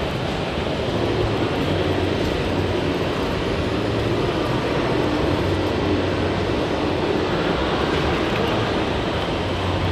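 Steady din of a busy exhibition hall: an even wash of background noise over a low, constant hum.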